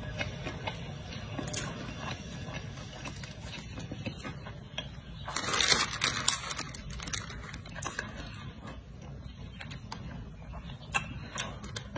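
Close-up eating sounds: chewing with small wet mouth clicks. About halfway through comes a louder burst of tearing and crinkling as a whole cooked chicken is pulled apart in its paper wrapping.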